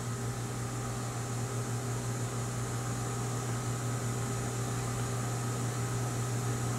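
Steady low hum with an even hiss: room tone. Nothing else happens.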